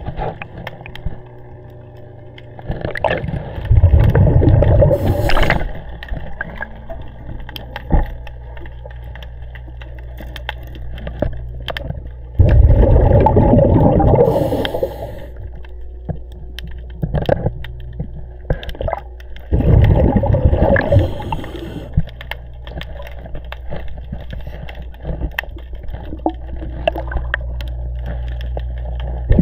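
Scuba diver's exhaled bubbles rushing out of the regulator in loud bubbling bursts of two or three seconds, one breath about every seven or eight seconds. A steady low hum and faint clicks run between the breaths.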